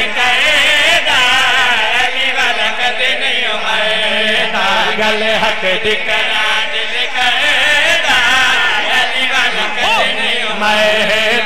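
Men's voices singing a Punjabi devotional qasida through microphones, in long, wavering, melismatic notes without clear words.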